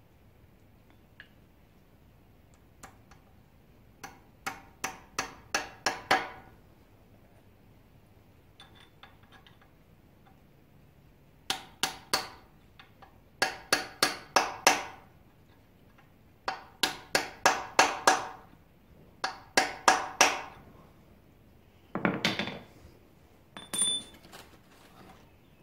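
A hammer tapping keys into the keyways on the snout of a Chevy 350 crankshaft. The sharp metal-on-metal blows each ring briefly and come in several runs of three to six quick taps, about three a second.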